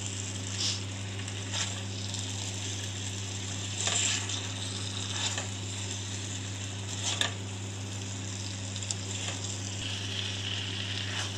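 A spoon stirring a thick, saucy paneer and pepper stir-fry in a steel kadhai, with a steady sizzle. The spoon scrapes against the pan now and then.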